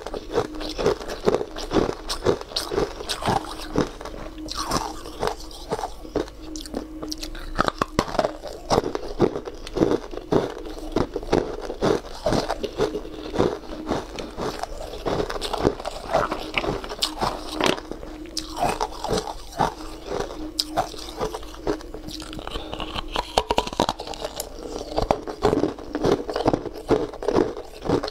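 Chunks of ice being bitten and chewed in the mouth: a close, continuous run of sharp crunches and crackles.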